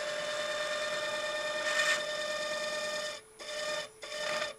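Woodturning texturing tool's wheel pressed against a wooden canister spinning on the lathe at about 500 rpm, making a steady buzzing rattle as it cuts a textured band. Near the end it cuts out briefly twice and starts again.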